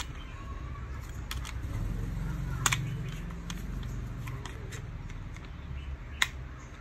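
Several sharp plastic clicks and knocks as two miniature circuit breakers are handled and turned over in the hands, the loudest a little before the middle and another about six seconds in, over a low background rumble that swells in the middle.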